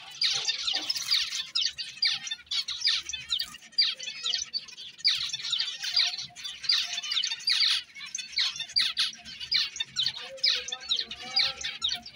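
A flock of caged zebra finches calling all at once: a dense, continuous chatter of short, high calls overlapping from many birds.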